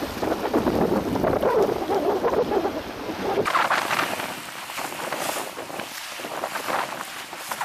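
Wind buffeting the microphone over waves washing against shoreline rocks. About halfway through, the low wind rumble drops away, leaving the surging hiss and wash of the water.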